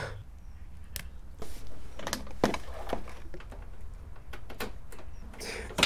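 Irregular clicks and knocks of the scooter's ignition key being worked in its lock, which sticks a little.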